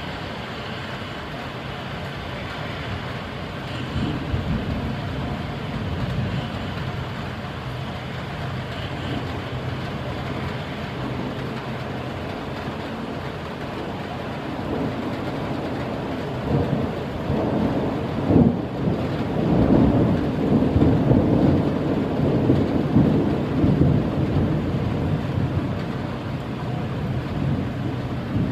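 Steady rain falling during a thunderstorm, with a long roll of thunder that swells up about halfway through, rumbles for several seconds and eases off near the end.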